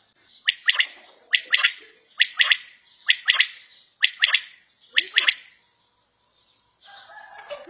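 Quail (batair) calling: six loud three-note phrases, one short note then two close together, repeated about once a second, then stopping about two-thirds of the way through.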